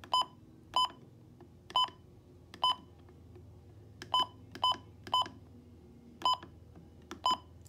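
Midland weather radio's key-press beeps: nine short, identical electronic beeps at uneven intervals as its buttons are pressed to set the alarm time.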